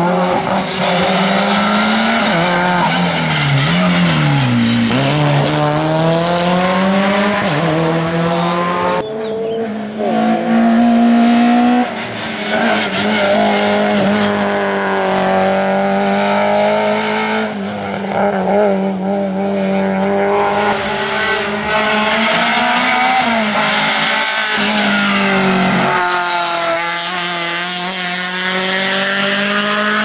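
Peugeot 106 hill-climb race car engine revving hard under acceleration, its pitch climbing and dropping sharply again and again as it shifts up and down through the gears.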